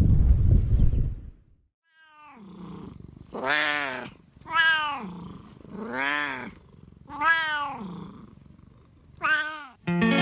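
A cat meowing about six times in long, drawn-out calls, each rising then falling in pitch, a second or so apart. Before the calls, wind rumbles on the microphone for the first second and a half.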